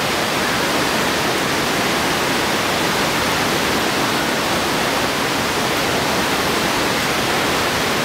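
Creek water rushing steadily over shallow rapids.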